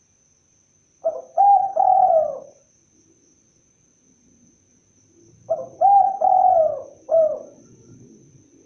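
Spotted dove (tekukur) cooing: two phrases about four seconds apart, each a run of three or four low coos, the middle ones drawn out.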